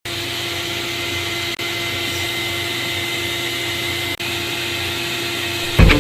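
Motor-driven drain-clearing tool running steadily, a constant machine hum, as it clears a clogged air-conditioner condensate drain pipe; the sound breaks off for an instant twice.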